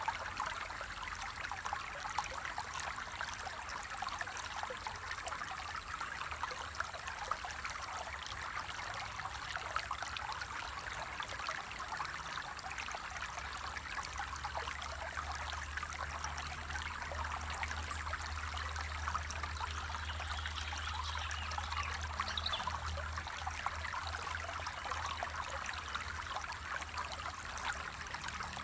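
Water flowing and trickling steadily over rocks in a small stream, a continuous splashing hiss. A low rumble joins it for a while midway.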